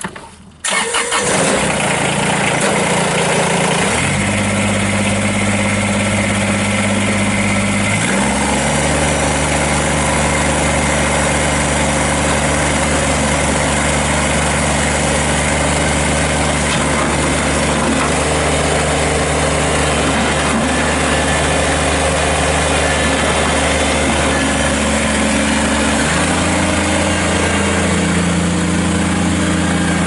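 Kubota BX25 subcompact tractor's three-cylinder diesel engine catching about half a second in, then running steadily as the tractor drives. Its pitch steps up twice in the first eight seconds, holds, and shifts again a few seconds before the end.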